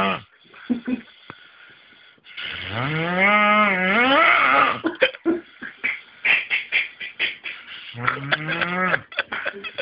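A sleeping man snoring with a loud, drawn-out, pitched moo-like sound lasting about two and a half seconds, rising then falling in pitch. It is followed by a rattling, crackling breath and a shorter moo-like snore near the end.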